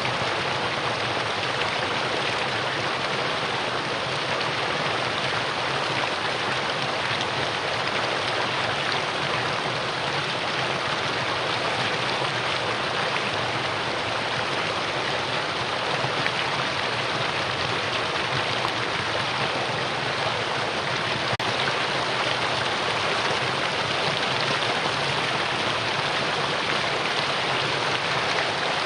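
Mountain valley stream water flowing, a steady, even rush of water with no breaks.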